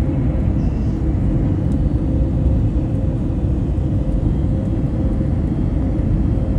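Airplane in flight on its approach to land: a steady low rumble of engines and airflow, with a faint steady hum above it.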